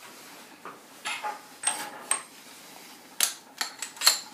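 About seven light clicks, taps and metallic clinks as hand tools (a grip clamp and a drill bit) are handled on a table saw top; two clinks near the middle ring briefly like metal on metal.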